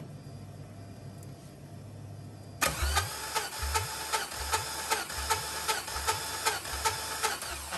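Starter cranking a cold 4.8-litre LS V8 during a compression test, the throttle held wide open so it turns over without starting. The starter's whir carries a regular pulse about every three-quarters of a second. It begins about two and a half seconds in and stops just before the end, after a low steady hum.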